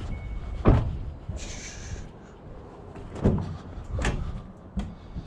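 Van door being opened and shut: a sharp clunk about a second in, then three more knocks and clunks near the end.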